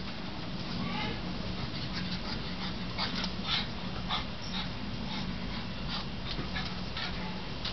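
A dog whining with a short rising whine about a second in, amid scattered light clicks and scuffs.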